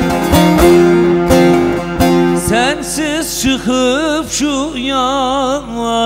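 Bağlama (long-necked Turkish lute) played with rapid plucked strokes over a steady drone. About two and a half seconds in, the strokes give way to a man's voice singing a Turkish folk song in a long line whose pitch wavers with ornaments.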